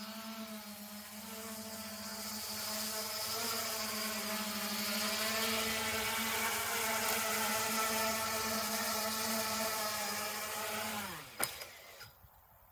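Homemade bicopter drone's two propeller motors buzzing steadily in a hover, growing louder as it comes close, then spinning down with a falling pitch as it lands on the pad, with one sharp click at touchdown.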